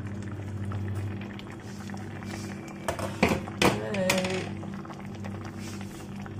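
Gochujang army stew simmering in an open pan, over a steady low hum, with a few sharp clinks about three seconds in.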